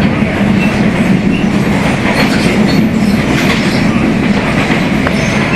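Rio de Janeiro Metro Line 2 train running at speed: a steady loud rumble of wheels on the track over a low drone of the traction motor growling ('roncando'), with a few faint high wheel squeaks.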